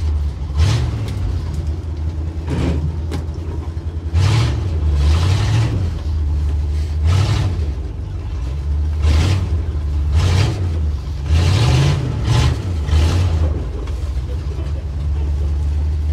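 Ford 332 Y-block V8 of a 1962 Ford C750 cabover truck, heard from inside the cab, running and revved in short blips every second or two.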